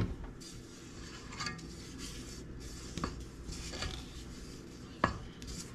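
A spatula scraping and stirring thick batter against the sides of a stainless steel stand-mixer bowl, with sharp knocks against the bowl about three and five seconds in.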